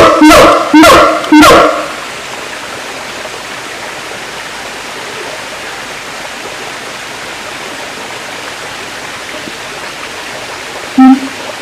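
Siamang calling: three short, loud pitched calls in the first two seconds, then a steady hiss, with one short call near the end.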